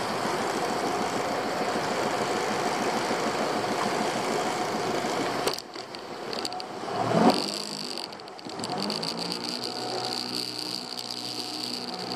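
A small fishing boat's engine running steadily. About halfway through it drops off suddenly. A brief loud rise and fall in pitch follows, and then it runs more quietly and evenly, with a thin high whine.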